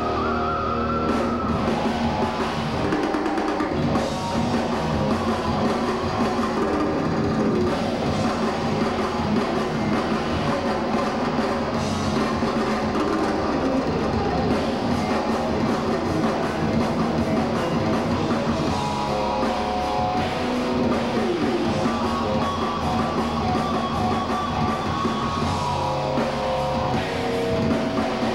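Heavy metal band playing live: distorted electric guitars and a drum kit.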